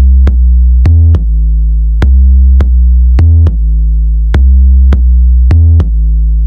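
Electronic intro music: a loud, deep synthesizer bass line with sharp drum-machine hits every half second or so.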